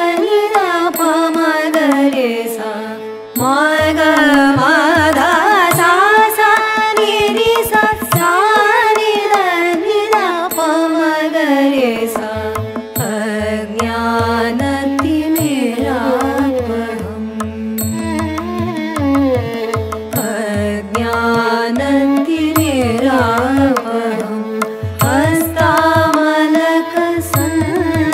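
Carnatic-style devotional song: a singing voice with gliding, ornamented pitch over a held drone and drum accompaniment.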